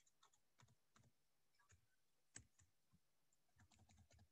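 Faint computer keyboard keystrokes: a few scattered taps, one louder about two and a half seconds in, and a quick run of taps near the end.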